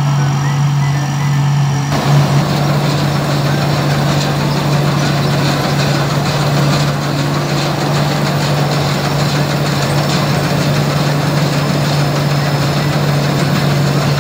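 Tracked rice combine harvester running at work, its engine a steady low hum. About two seconds in, the fuller mechanical noise of the machine cutting and threshing lodged rice comes up close.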